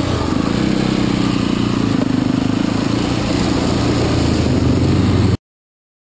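Dirt bike engine running close to the microphone, heard from the rider's own bike, its pitch wavering a little over a rushing noise. The sound cuts off suddenly near the end.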